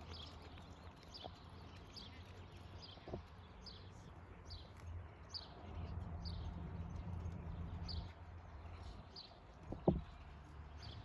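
Faint hoofbeats of a horse moving over arena sand under a low rumble, with a bird giving short falling chirps a little more than once a second. A single sharp thump a little before the end.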